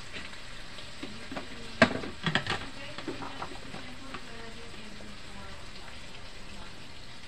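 Vegetable stew simmering and sizzling steadily in a non-stick pan, with a quick cluster of sharp knocks and clinks about two seconds in.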